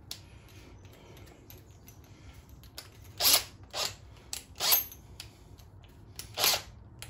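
Cordless drill's keyless chuck being tightened onto a drill bit: four short bursts of spinning and ratcheting, the first about three seconds in.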